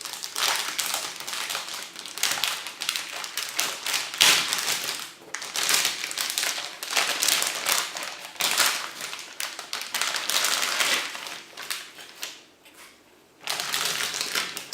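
Packaging being handled as a motherboard is unpacked from its box: continuous rustling and crinkling with small taps and knocks, pausing briefly near the end.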